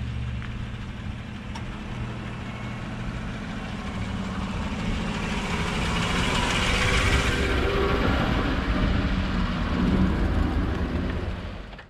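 Chevrolet Silverado pickup driving over the camera with its engine running low. The tyre and engine noise swells as the truck passes overhead, and the boat trailer's wheels roll past near the end.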